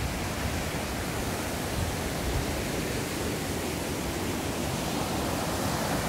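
Mountain stream rushing over rocks and small rapids: a steady, even rush of white water.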